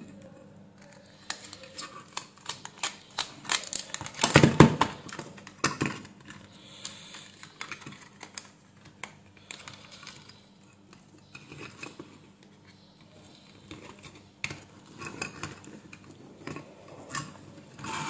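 Small clicks, taps and scrapes of plastic headphone parts and a small circuit board being handled, with a precision screwdriver working on tiny screws. A louder cluster of knocks comes about four seconds in.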